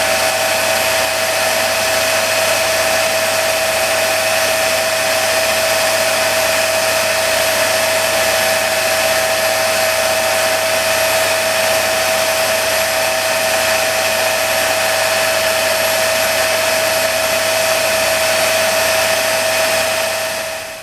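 Electric rotary grinder running steadily with a high whine over an airy hiss, falling away at the very end.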